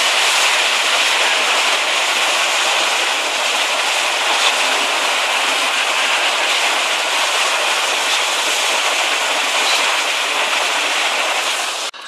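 Muddy floodwater rushing down a swollen river in spate, a loud, steady rush of churning water that cuts off suddenly at the very end.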